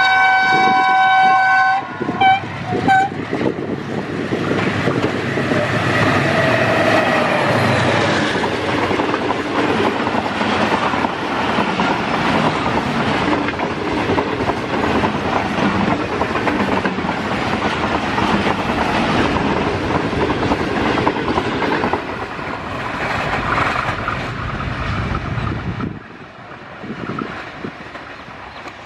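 Diesel locomotive horn: one long blast, then a few short toots. The passenger train then passes at speed, its wheels clattering over the rails for about twenty seconds. The noise drops off sharply near the end as the train draws away.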